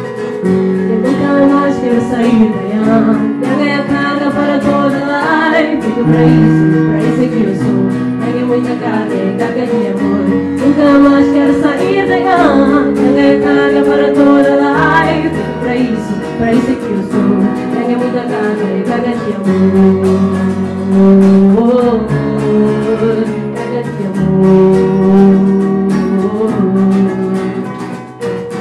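Live band music: women singing a slow song over acoustic guitar and keyboard chords.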